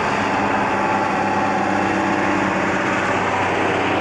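Diesel engine and tyre noise of a loaded logging truck approaching and passing along the highway, a steady drone.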